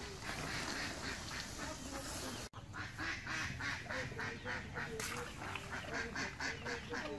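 Domestic fowl calling in a rapid series of short, repeated calls, about four a second. The calls break off for an instant about two and a half seconds in.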